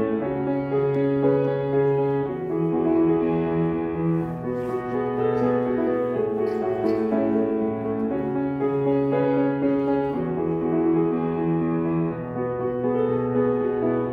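Yamaha grand piano played solo, with held bass notes changing every second or two beneath a melody.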